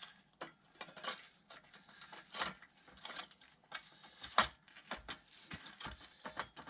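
Camper jack being cranked: irregular metallic clicks and knocks.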